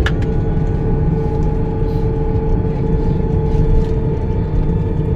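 Airliner cabin noise: a steady low rumble of the aircraft with two steady whining tones, the higher one starting just after a click at the start.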